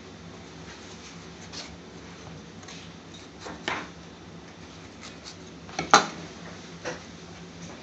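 A few short knocks of a kitchen knife and tomato halves on a plastic chopping board, the loudest about six seconds in, over a low steady hum.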